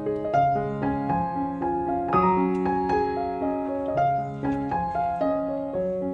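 Background piano music: a gentle melody of notes struck and held over a steady accompaniment.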